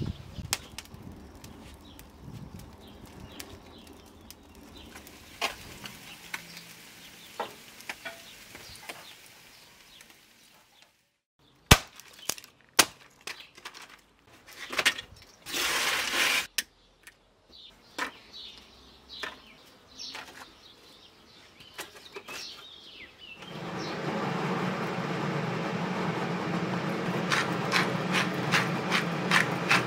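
Faint outdoor ambience, then a series of sharp wooden knocks and clatters as thin split kindling is handled on a chopping stump. Near the end a steady rushing noise with fast regular ticking starts suddenly.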